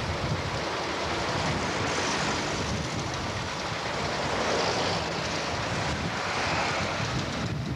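Wind blowing on the microphone: a rushing hiss with a low rumble that swells and eases a few times.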